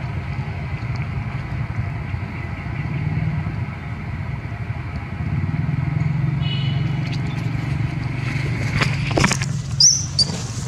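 A motor vehicle's engine running steadily as a low hum, growing louder about halfway through. Near the end come a few sharp clicks and a brief high chirp.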